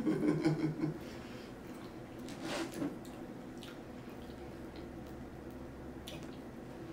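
A sub sandwich on a long roll handled and pressed in the hands: soft squishing of bread and fillings, with a brief rustle about two and a half seconds in and a few small clicks. A short hum from the eater at the start.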